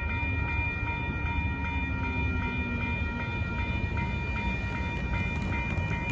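Railroad grade-crossing warning bell ringing in a fast, steady rhythm of about three dings a second over a low rumble.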